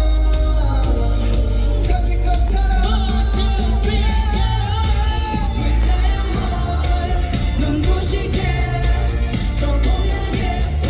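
Pop song with male group vocals sung over a backing track with heavy, steady bass, played loud through a concert sound system.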